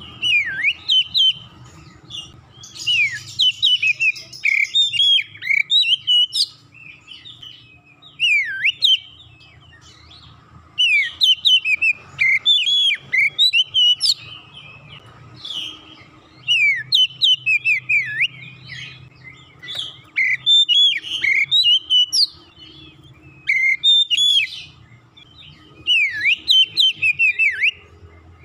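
Oriental magpie-robin singing in full voice: repeated bouts of loud, varied whistled phrases with sweeping and chattering notes, each bout one to four seconds long with short pauses between.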